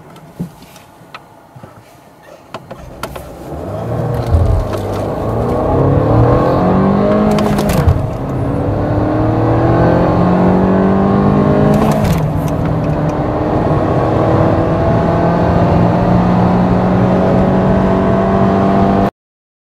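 Volkswagen Golf engine accelerating hard from a standstill, heard from inside the cabin. Its pitch rises through each gear and falls back at the gear changes about 8 and 12 seconds in, and the sound cuts off suddenly near the end.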